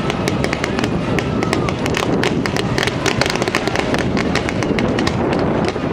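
Fireworks display firing volleys of rising coloured stars in quick succession: a dense, unbroken string of sharp cracks and pops over a steady rumble of launches.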